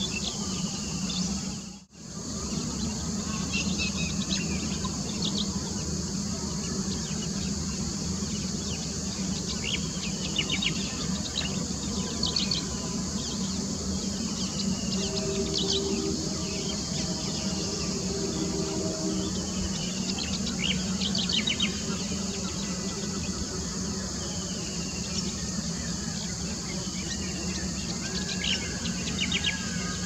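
Outdoor ambience: a steady high drone of insects with small birds chirping and calling on and off over it, above a low steady hum. The sound cuts out briefly about two seconds in.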